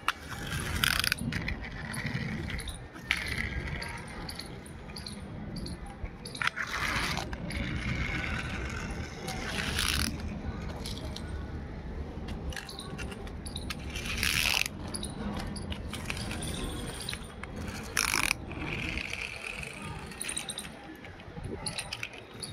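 Small plastic toy cars and planes scraping and rolling over rough concrete, in short gritty bursts every few seconds over a steady low rumble.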